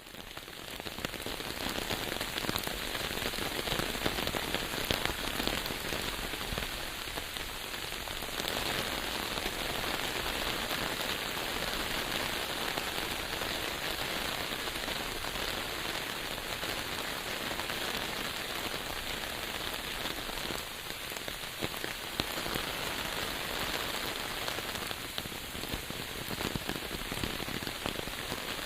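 Steady rain falling, a dense even patter of many drops, fading in over about the first second and then holding steady.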